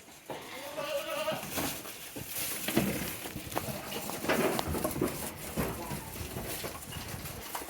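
A goat bleats once, a short wavering call about half a second in, followed by irregular rustling and scuffing from goats moving and grazing in the grass.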